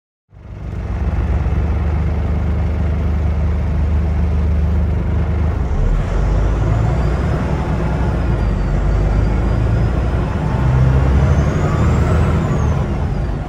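Scania N94UD double-decker bus heard from inside the cabin under way, its diesel engine droning low under load. From about halfway through, the turbocharger whistles: a thin high whine that rises and falls, climbing highest near the end.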